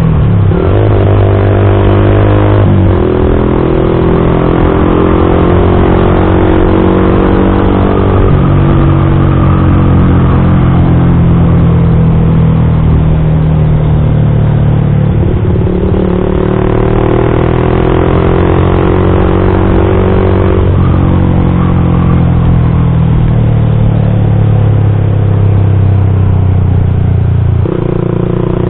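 Yamaha MX King 150 motorcycle engine running through a custom aftermarket exhaust while riding, the engine note holding or climbing and then shifting abruptly to a new pitch several times as the rider works the throttle and the gears.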